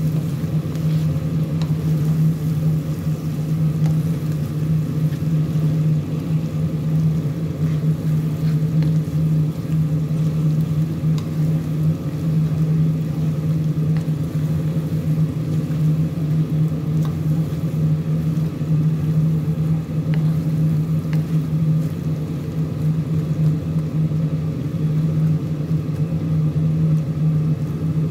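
A steady low hum, with shrimp sizzling in butter in a frying pan and a few light taps of a wooden spatula on the pan.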